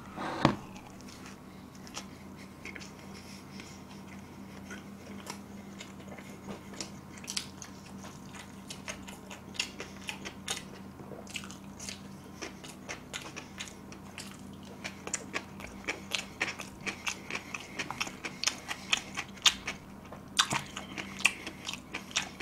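Close-miked chewing of pizza crust: a bite, then repeated wet mouth clicks and crunches of chewing, coming faster in the second half, over a low steady hum.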